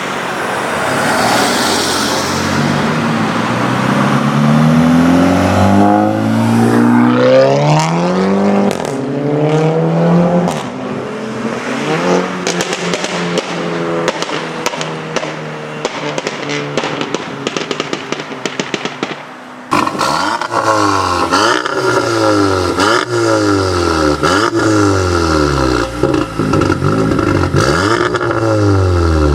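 Volkswagen Golf's turbocharged four-cylinder engine, loud, pulling hard with rising pitch and dropping between gears, then running with a rapid string of exhaust pops and crackles. After a sudden cut about two-thirds in, it revs up and falls away again and again, about once a second.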